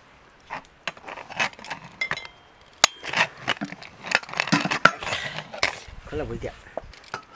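Kitchen cooking noises: scattered clicks, knocks and scrapes, with a short metallic ring about two seconds in and a brief voice about six seconds in.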